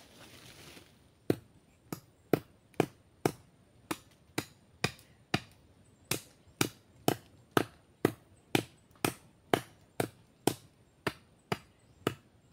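Chopping into wood: a steady run of sharp blows, about two a second, starting about a second in and going on without a break.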